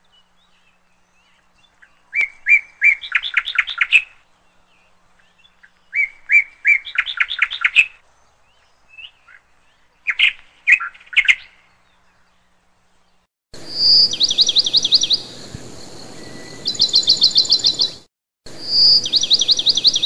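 Lutino peach-faced lovebirds chirping in short bouts: a few sharp high chirps running into a fast trill, three times in the first half. From about two-thirds in, a hissier stretch of rapid repeated chirp trills takes over, broken by a short gap near the end.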